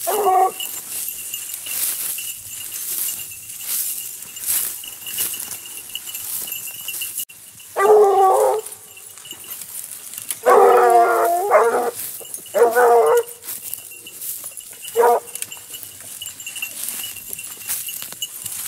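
Basset bleu de Gascogne hounds giving tongue while working a scent line: one short bay at the start, then several bursts of baying after about eight seconds, the longest lasting over a second, and a last single bay near the end. Dry brush rustles and crackles throughout.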